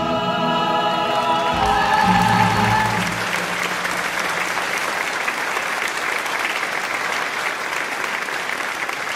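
A stage-musical cast sings together, holding a final chord for about three seconds. Then the audience breaks into steady applause.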